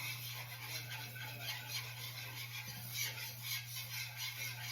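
A utensil scraping and stirring a flour-and-bacon-grease roux around a pan in repeated rasping strokes, keeping it moving so it doesn't burn, over a steady low hum.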